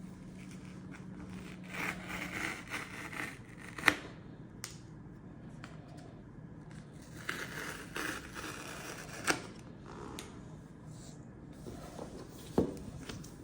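HomePod 2 cardboard packaging being handled and opened, with stretches of rubbing and scraping and three sharp knocks or clicks of the box and its parts.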